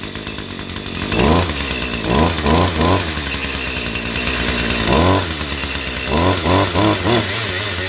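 Echo GT260 brush cutter's two-stroke engine running at idle and blipped up with the throttle again and again: one rev about a second in, a quick run of three or four around two to three seconds, another single rev about five seconds in and a second quick run around six to seven seconds. It runs solidly and revs up cleanly, the sign of an engine in good running order.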